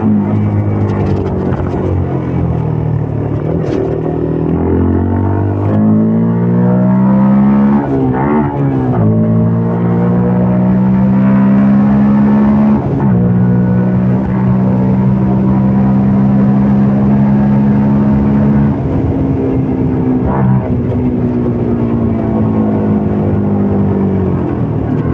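CFMOTO Papio 125's single-cylinder four-stroke engine running under way, its note rising and dropping several times as the rider works the throttle, with a quick blip about eight seconds in.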